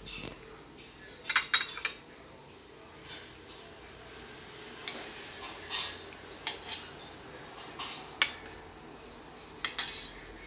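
A soup spoon clinking and knocking against a stainless steel bowl as marinated eggs are scooped out of the liquid. The clicks are scattered and sharp, with the loudest cluster about a second and a half in.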